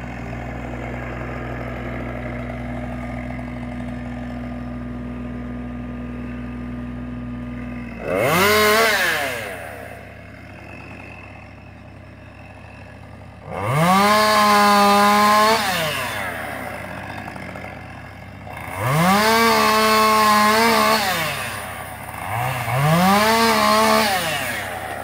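Husqvarna 550 XP two-stroke chainsaw revved up to full throttle and let back down four times; the later three are each held for a second or two. For about the first eight seconds a steady low engine idle runs, and it stops as the first rev begins.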